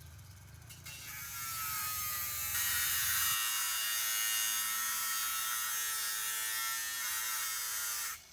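Electric motor running: a steady high whine over a loud hiss, starting about a second in and cutting off abruptly near the end.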